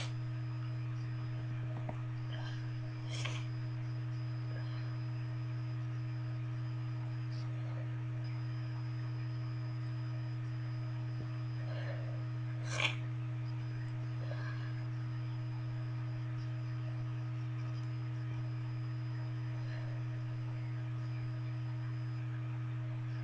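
Steady electrical hum in the recording, several fixed tones at an even level. Two brief, faint hissy noises come about three seconds in and again near the middle.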